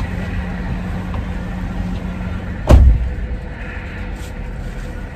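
Steady low hum of a parked vehicle running, heard from inside the cabin, with one loud thump about two and a half seconds in.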